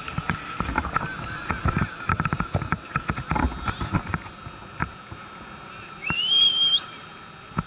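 Knocks and scuffs of the catcher's gear against a helmet-mounted camera as he settles for the pitch. About six seconds in, someone whistles a single rising note lasting under a second.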